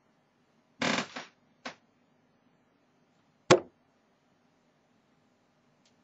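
Steel-tip tungsten darts striking a dartboard: a short cluster of knocks about a second in, a light click just after, then one sharp thud about three and a half seconds in.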